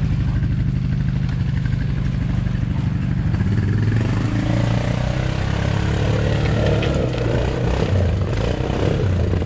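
Polaris 850 four-wheeler's engine running under load as it tries to climb a creek bank, revving higher from about three and a half seconds in.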